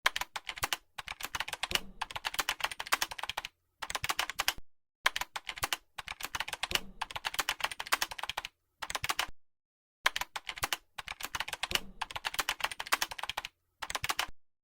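Typing sound effect: rapid key clicks in bursts of about half a second to two and a half seconds, broken by short dead-silent gaps.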